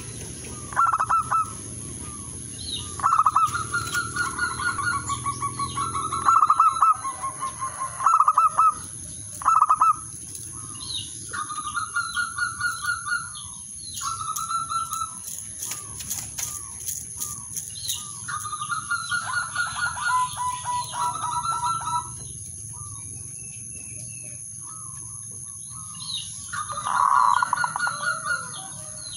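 Male zebra dove cooing its territorial call to rivals: repeated phrases of quick, staccato trilled coos, with pauses between phrases. A brief flutter of wings about halfway through, over a steady high hiss.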